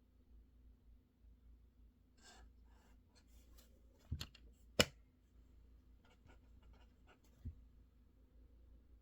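Scattered light clicks and taps of someone working at a desk, with two sharp clacks about four and five seconds in and a soft thump near the end, over a faint steady hum.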